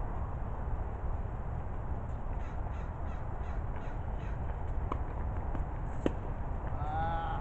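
A crow cawing once near the end, over a steady low rumble. Two sharp knocks come a little over a second apart just before the call.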